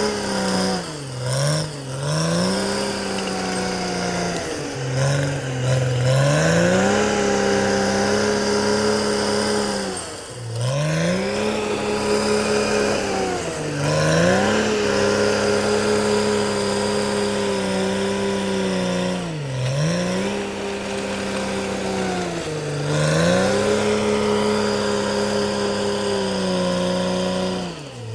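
Caterpillar D6R XL bulldozer's diesel engine running hard, its pitch dropping sharply and recovering about eight times as it takes load and changes direction while cutting a mountain road.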